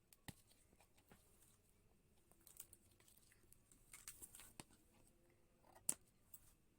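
Faint crinkling and scattered clicks of a toy surprise ball's wrapping being opened by hand, with one sharper click near the end.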